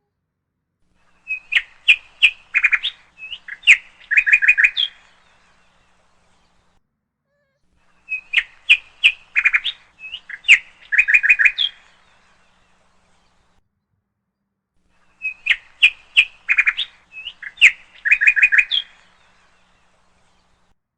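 A songbird singing the same phrase of quick, high chirps ending in a rapid trill, three times about seven seconds apart.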